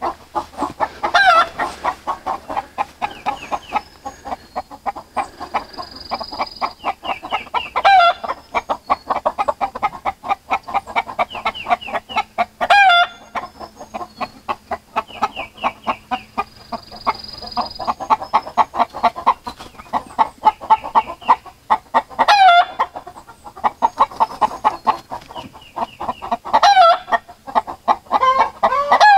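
A flock of chickens clucking steadily, with a loud call breaking out above the clucking every few seconds, about five or six times.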